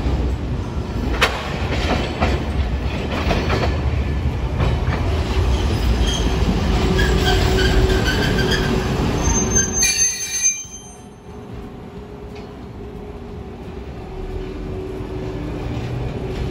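Hiroshima streetcars running through a tram stop: a loud rumble of steel wheels on the rails. High squealing tones ride on top of it from about six to ten seconds in, then it drops suddenly to a quieter rumble as an older 1900-series car moves past the platform.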